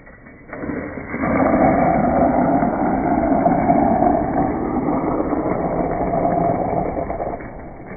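Steady rushing rumble of a Rock Rider mountain bike being ridden, with tyre and ride noise. It starts about half a second in and eases off near the end.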